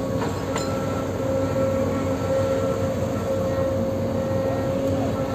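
Excavator diesel engine running steadily, a constant drone with a faint high whine coming and going.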